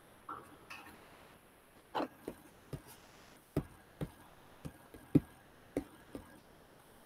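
Computer mouse clicks, about a dozen sharp irregular clicks spread over several seconds, heard through a video call's microphone as a screen share is being set up.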